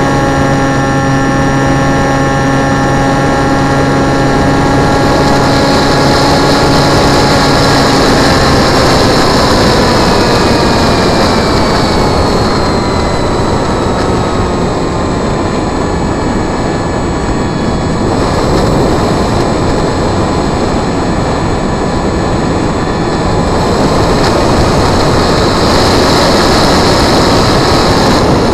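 Electric motor and pusher propeller of a small foam flying wing, heard from a camera on board with air rushing past. There is a steady whine for about eight seconds, then the pitch slides down as the autopilot eases off the climb throttle after reaching its takeoff waypoint. Mostly the rush of air is left, and it grows again near the end.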